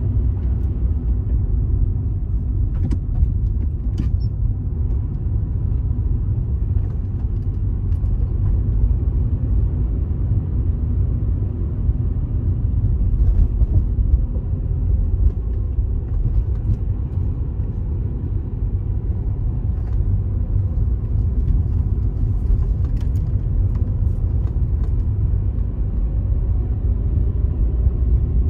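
Steady low rumble of a car driving along a city street, engine and tyre noise, with a few faint clicks.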